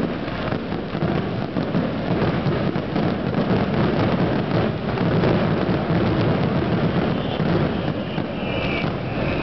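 Fireworks barrage: many aerial shells and low-level comets firing and bursting in quick succession, running together into one continuous stream of booms and crackle.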